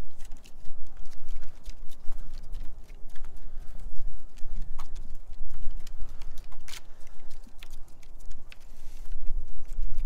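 Footsteps on wooden boardwalk planks: a person's steps and two dogs' paws and claws knocking and clicking irregularly on the boards, over a steady low rumble.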